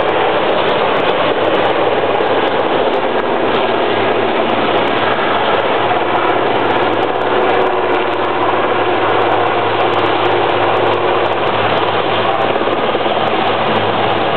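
Helicopter engines running steadily: a loud, even noise with a low hum underneath.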